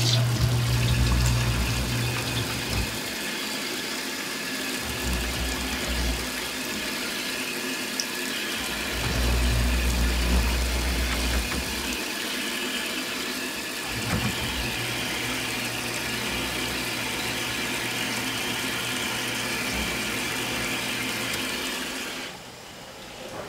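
Tap water running steadily into a sink, shut off about a second before the end.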